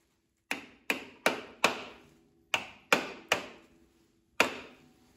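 Steel hammer striking a rusted steel brake drum on the front wheel hub, eight sharp metallic blows in three groups (four, three, then one), each ringing briefly: hammering to knock loose a drum that is stuck on.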